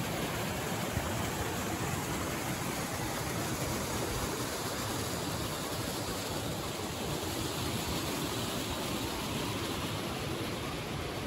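Steady rush of a mountain stream flowing over rocks, an even hiss with no let-up.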